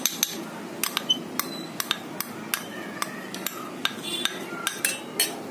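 A spoon repeatedly tapping and scraping against a glass bowl, light clinks about two to three a second, as cornflour is knocked out of the bowl into a batter bowl.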